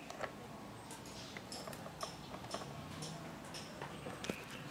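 Faint, irregular small clicks and ticks of fingers and Play-Doh against a plastic toy tray as a thumb presses the dough into a mould.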